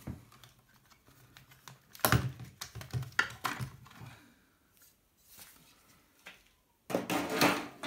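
Plastic clicks and knocks of a Makita cordless drill's clamshell housing being prised apart and pulled off: a cluster of sharp clicks about two seconds in, a few faint ticks after, and louder handling near the end.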